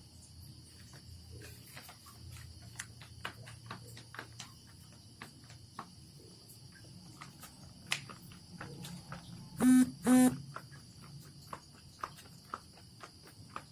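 Two short, loud buzzing beeps about half a second apart, over a steady high insect-like trill and scattered faint clicks.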